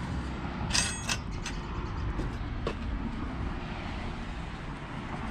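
Chain-link gate clanking and rattling, with a bright metallic ring about a second in, over a steady low rumble of outdoor noise. A few scattered footstep clicks follow.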